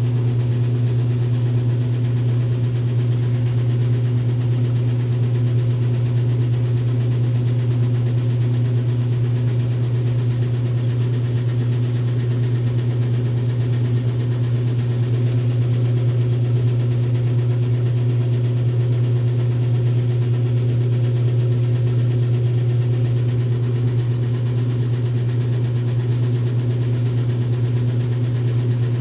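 1962 RCA Whirlpool LJA70 washing machine running, with a steady, unbroken low motor hum.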